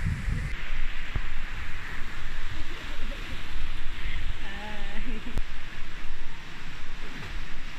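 Wind buffeting the microphone over a steady hiss, with a brief wavering voice calling out about halfway through.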